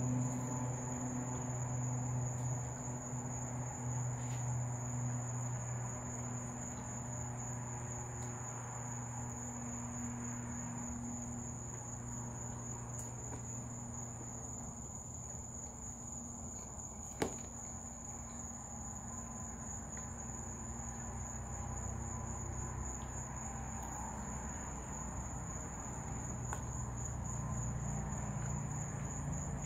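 Crickets chirping in a steady, unbroken high-pitched trill over a low hum. A single sharp click comes about seventeen seconds in.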